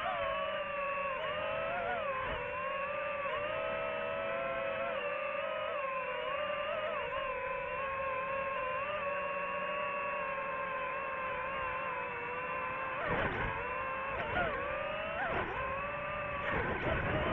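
Quadcopter drone's motors and propellers whining steadily in flight, a high hum with several overtones that wavers slightly. About thirteen seconds in the pitch dips and swings several times with short bursts of low rumble as the drone changes speed.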